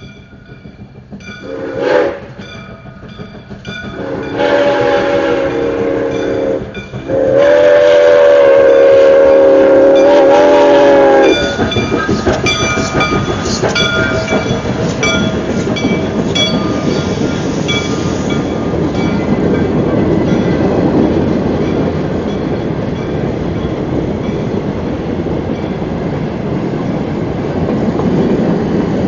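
Steam whistle of Soo Line 2-8-2 Mikado locomotive 1003 sounding three blasts, a brief one and then two long ones, the last the longest and loudest. Then the train rolls past loudly, its wheels clicking over the rail joints.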